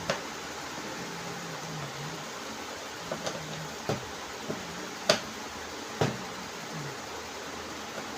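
Scattered sharp clicks and knocks, about seven in all, from tools and metal parts being handled while a washing machine gearbox is changed, over a steady hiss.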